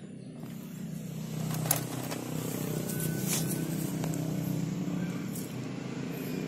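A road vehicle's engine running steadily nearby, growing louder about a second in, with a few light clicks over it.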